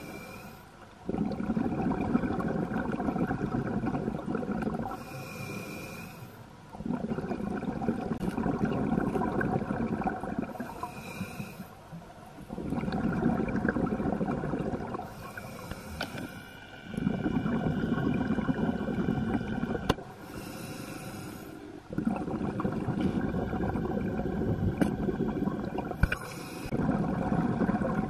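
A scuba diver breathing through a regulator underwater. Each breath is a short hissing inhale through the demand valve, with a faint whistle, followed by a longer, louder stream of exhaled bubbles. The cycle repeats about every five seconds, six breaths in all.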